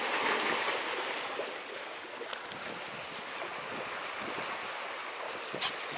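Steady wash of sea waves against a breakwater, mixed with wind on the microphone, and one short click near the end.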